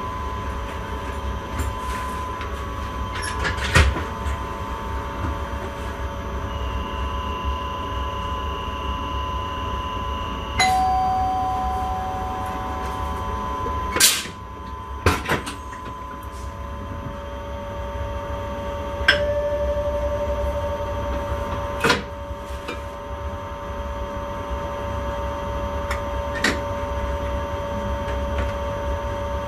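Train driver's cab sound: a steady low rumble with steady tones from the cab, and a handful of sharp clicks and knocks at irregular intervals. One tone sounds for a few seconds early on the way and another for about three seconds near the middle.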